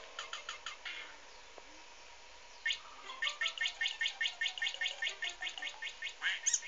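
Cartoon bird chirping from a Pocoyo episode, played through a tablet's speaker. A few short chirps come at first; then, after about a second and a half of quiet, a fast, even run of short high chirps follows at about five a second.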